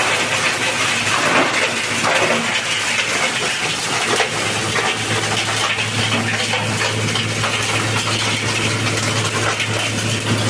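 Electric-motor-driven compost chopper running, with a steady low hum under a continuous metallic rattling clatter.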